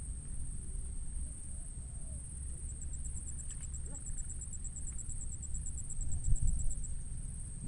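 Insects trilling steadily at a high pitch in on-and-off phrases, with a second, faster pulsing trill joining from about three seconds in until about seven seconds in. A low rumble runs underneath, with a louder low bump a little after six seconds.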